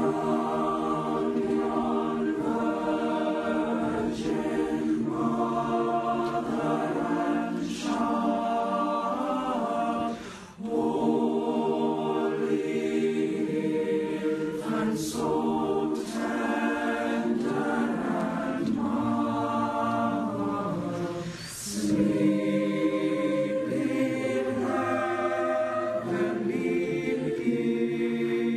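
Boys' choir singing a hymn unaccompanied in several parts, in long sustained phrases with two brief pauses between phrases, about ten seconds in and again about twenty-one seconds in.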